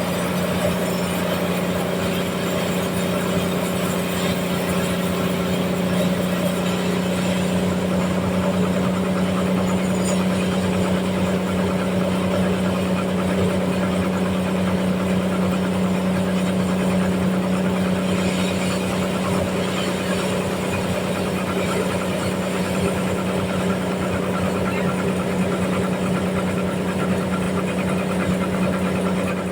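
Sawmill running steadily, a constant low mechanical hum with no change in pace.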